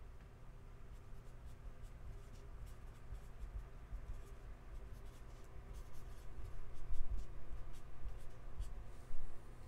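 Faint scratching and rubbing of hands working with trading cards and supplies on a tabletop, with low bumps about seven seconds in and again near the end.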